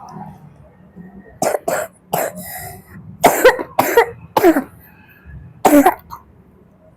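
A person coughing repeatedly, about seven sharp coughs in short fits, from someone ill with a cough.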